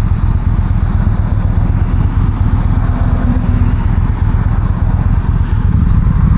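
Yamaha V-Star 1300's V-twin engine idling with a steady low note, the engine note rising slightly near the end.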